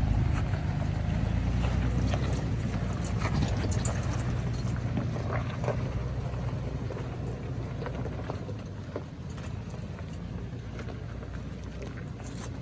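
Toyota 4Runner's 4.0-litre V6 running at low speed on a rocky trail, with tyres crunching and clicking over stones. The engine note eases off about eight seconds in.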